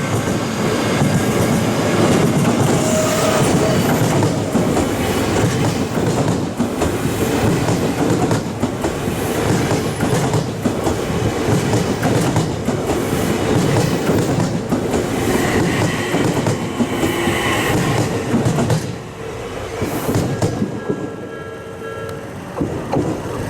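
Odakyu 3000-series electric train passing close by over a level crossing, its wheels clacking over the rail joints. The passing noise falls away about 19 seconds in.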